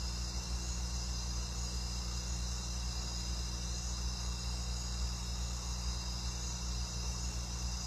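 Steady chorus of rainforest insects, with several high, unbroken tones layered together, over a low steady hum.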